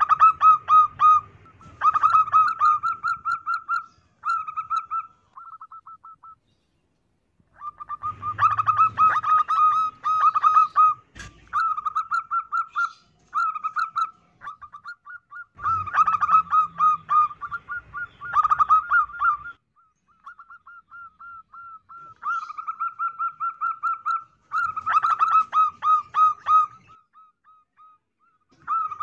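Female zebra dove (perkutut) cooing in repeated bouts of rapid staccato trilled notes, each bout lasting a few seconds with short pauses between them.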